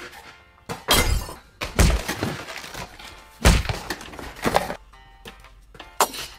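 Cardboard packaging being pulled about and handled, with about five dull thumps and rustles a second or so apart.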